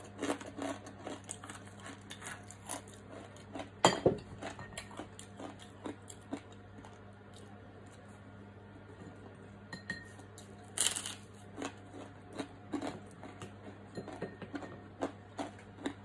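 Someone eating at a table: scattered small clicks and clinks of dishes and a glass bowl. There is one sharper knock about four seconds in and a brief scratchy noise about eleven seconds in, over a low steady hum.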